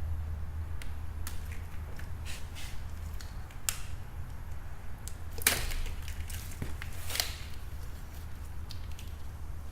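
Scattered sharp clicks and clatters of plastic wiring-harness connectors and clips being unclipped and handled, the loudest about halfway through and again a couple of seconds later, over a steady low hum.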